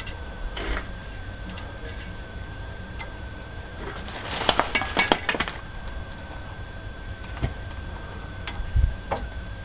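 Metal tools and parts clinking and rattling against each other, with a quick cluster of clinks about four to five and a half seconds in and a few single knocks later. A faint steady whine runs underneath.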